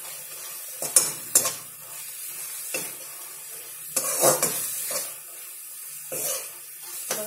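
Metal spatula scraping and knocking against a wide metal kadai, about every second or two, as leafy greens are stirred. Under it a steady sizzle as the last of the water cooks off the greens.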